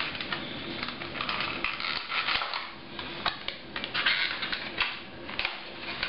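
Clear plastic clamshell package of a RAM module being handled and opened, a run of crinkling and small clicks.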